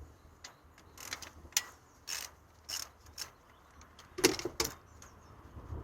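Ratchet spanner clicking in short separate strokes while working the nuts on a starter motor's terminal connections, the loudest strokes a little past four seconds in.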